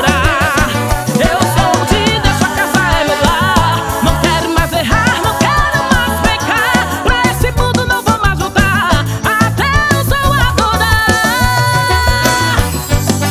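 Instrumental break of an electric forró gospel song: a band plays a wavering lead melody over a steady bass and drum beat, with held notes near the end.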